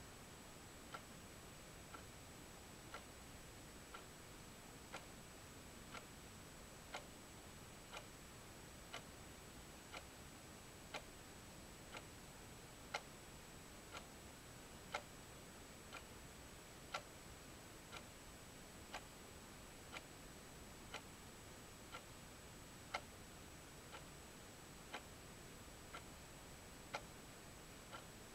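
Faint, even ticking, exactly one tick a second, over a low hiss.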